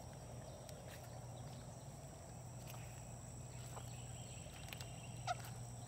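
Quiet riverbank ambience: a faint steady high insect whine over a low hum, with a few soft footsteps on the pebbles. Near the end a shoe squeaks once, briefly.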